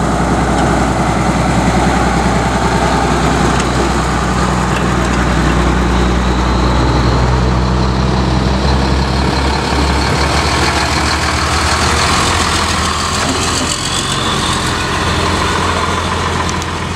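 Heavy trucks driving slowly past one after another, their engines running steadily; the engine note changes about ten seconds in as a different truck comes close.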